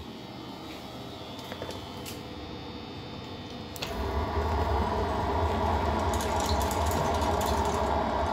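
KIPI pellet burner on a boiler running steadily, its fan and flame giving an even machine noise. About four seconds in there is a click, and the sound turns much louder, a deep continuous rumble.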